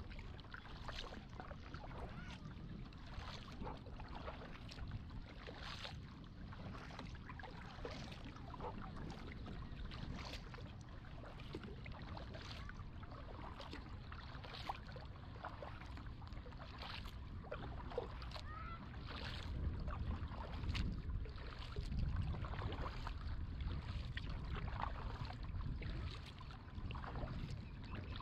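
Kayak paddle strokes dipping and splashing in the water, about once every one to two seconds, over a low rumble that gets louder in the second half.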